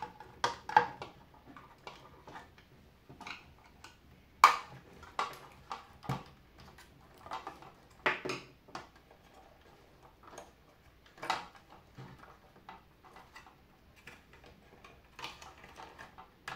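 Hard plastic housing parts and internals of a Delonghi Special T tea machine clicking and knocking as they are handled and pulled apart: irregular sharp clicks with quiet gaps between, the sharpest about four and a half seconds in.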